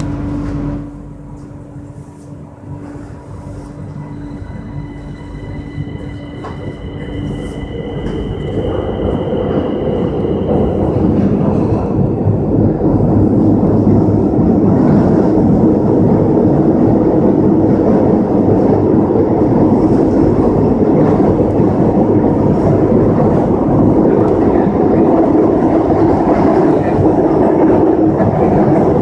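A Madrid Metro 6000-series train heard from inside the car as it pulls out of a station and accelerates into the tunnel. Faint high, steady whining tones sound for several seconds as it starts. The running noise then grows louder over the first dozen seconds and settles into a steady, loud rumble of wheels on rails in the tunnel.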